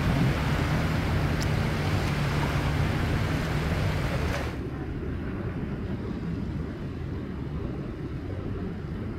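Seaside wind and water noise with a steady low hum from a boat engine for the first four seconds or so. About halfway through the hiss drops away abruptly, leaving a low rumble.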